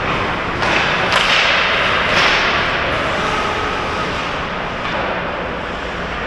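Ice hockey skate blades scraping and carving hard on the ice close to the net, in several hissing strokes that start about half a second, one second and two seconds in, with a thud or two of stick and puck.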